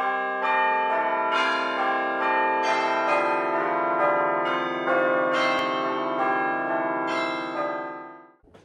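Bells ringing in a quick run of overlapping strikes, each ringing on under the next. The sound fades away near the end and then cuts off.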